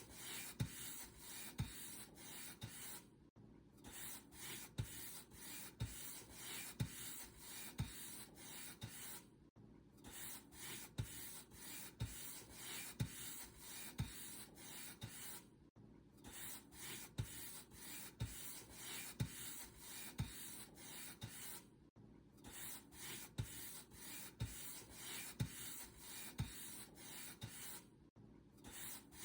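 Paint brush bristles stroking back and forth over a surface, a soft scratchy swishing at about two strokes a second, broken by a brief silent gap about every six seconds.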